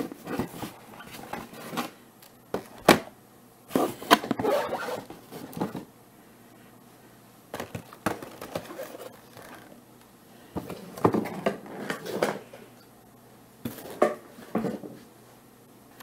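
Cardboard shipping box being handled and shifted on a tabletop: irregular scrapes and scratches of cardboard with several sharp knocks, broken by short quiet gaps.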